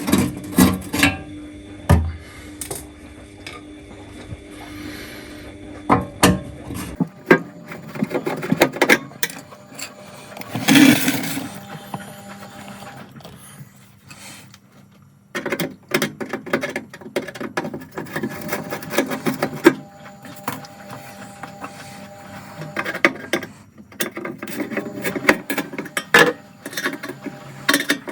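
Hand work on the sheet-metal backing plate of an oven with a screwdriver: irregular metal clicks, taps and scrapes as the screws are undone and the plate is handled, with a denser scraping rustle about 11 seconds in.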